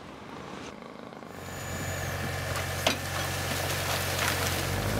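Farm tractor engine running steadily as it tips a trailer load of household rubbish, starting about a second in, with a sharp knock near the middle.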